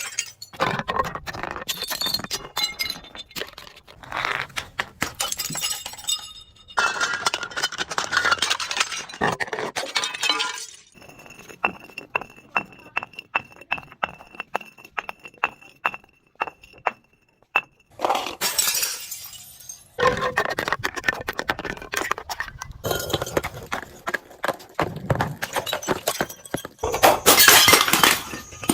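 Glass being broken and crushed: dense crackling, crunching and clinking of shattering glass, in bursts. Around the middle it drops to a quieter stretch of sparse sharp ticks over a faint steady high tone, then the crunching picks up again.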